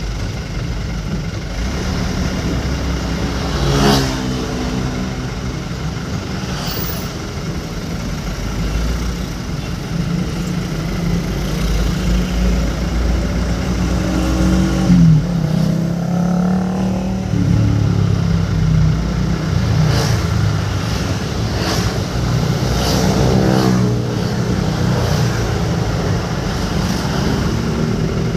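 A vehicle engine running while driving, with a steady low rumble. Its pitch rises and falls a few times as it speeds up and slows.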